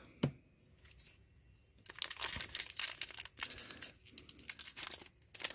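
Plastic wrapper of a baseball card pack being torn open and crinkled, a dense crackling that starts about two seconds in after a near-quiet start with a single tap.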